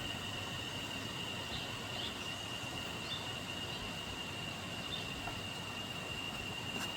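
Steady high-pitched insect drone, one unbroken tone, over a constant hiss, with a few faint chirps.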